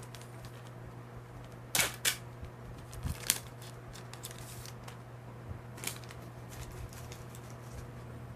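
Trading cards and their pack wrapper being handled: a few short rustles and clicks, the sharpest about two and three seconds in and again near six seconds, over a steady low hum.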